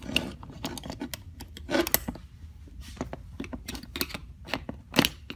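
Screwdriver tip scraping and clicking against a steel split retaining ring as it is worked around a ratchet head to pry the ring off: irregular small metal clicks and scrapes, with a sharper click near the end.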